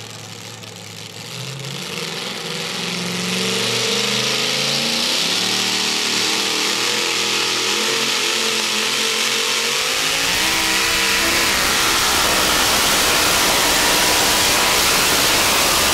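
Supercharged engine of a modified two-wheel-drive pulling truck revving up from idle and running at full throttle as it drags the weight-transfer sled. Its pitch climbs over the first several seconds, then it holds loud and rough to the end.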